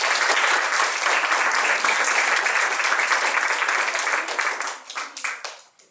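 Audience applauding, a dense clapping of many hands that thins to a few scattered claps about five seconds in and stops.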